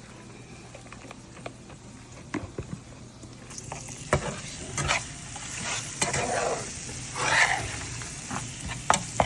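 A utensil stirring and scraping in a skillet of gravy base made from chicken-liver drippings, with sizzling that swells in about three and a half seconds in. There are several sharp clinks of the utensil against the pan.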